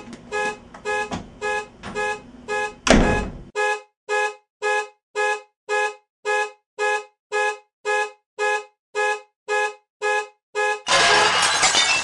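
A horn-like alarm beeping evenly, about twice a second, with a loud knock about three seconds in. Near the end a loud crash of breaking glass cuts the beeping off.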